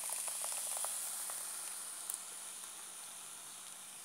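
Shredded chicken sizzling in a hot pot, with small crackles in the first second, the sizzle easing down as thick blended corn cream is poured over it.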